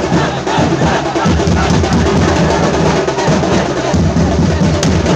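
Loud, dense drumming from a street procession drum band, with a big bass drum beating low underneath.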